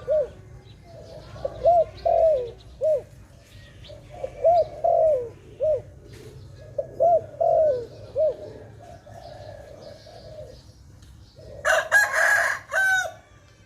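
A dove cooing in repeated short phrases of three or four soft arched notes, a phrase every two to three seconds. Near the end comes a louder, rougher burst with a higher call in it.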